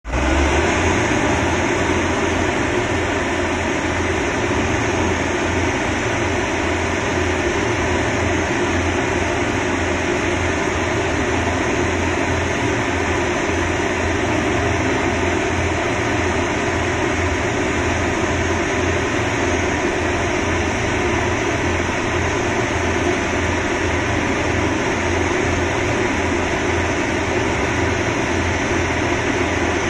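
Engine of a concrete mixer with a self-loading hopper running steadily, with a fluttering low hum and no change in speed.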